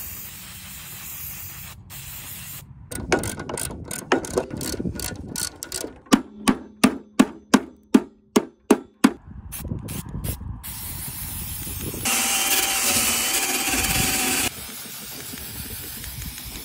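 Rapid clicking and rattling, then about ten sharp hammer blows on a lawn mower deck, roughly three a second. Later an aerosol spray-paint can hisses loudly for about two seconds, then more quietly.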